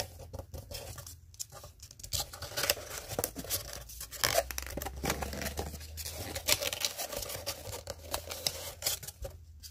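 Paper and card being handled and picked at: irregular crackling, rustling and scratching as a small white card or envelope is worked at with the fingers over a cardboard shipping box.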